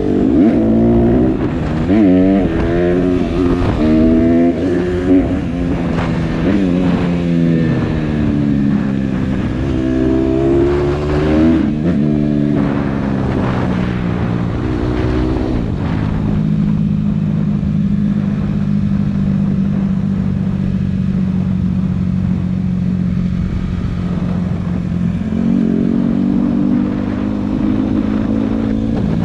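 Honda CRF150R dirt bike's single-cylinder four-stroke engine under way. For the first half it rises and falls in pitch again and again as the rider works the throttle and gears. After that it runs at a steady pitch for about ten seconds, then picks up a little near the end.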